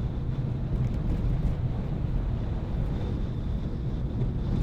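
Car driving on a road: a steady low rumble of engine and tyre noise, with wind buffeting the microphone.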